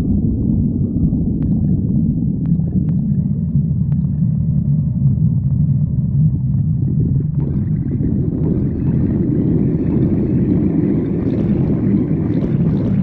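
A hungry stomach growling: a continuous low rumble that turns into a fuller, brighter gurgle about seven seconds in.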